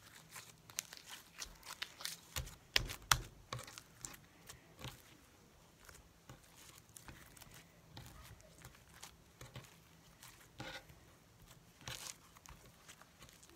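Purple slime with beads in it being kneaded and stretched by hand, giving irregular sticky pops, clicks and crackles, busiest in the first few seconds.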